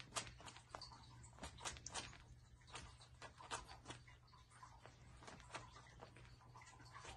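Faint, irregular light clicks and rustles of Bengal kittens at play, claws and paws scrabbling at a plush toy and a woven rug, thicker in the first few seconds and sparser later, over a faint steady low hum.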